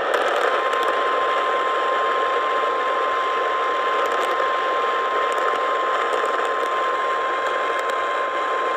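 NOAA Weather Radio 1050 Hz warning alarm tone, a single steady tone starting about half a second in and held through, over heavy static from weak radio reception. It is the alert tone that heralds an incoming flash flood warning.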